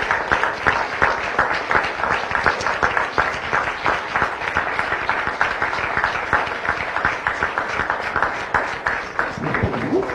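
A roomful of people applauding, a steady patter of many hands clapping that eases off near the end.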